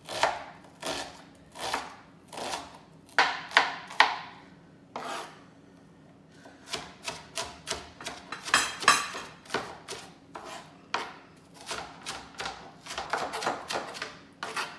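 Kitchen knife chopping an onion on a cutting board: a run of quick, irregular knocks, with a pause of about a second and a half near the middle.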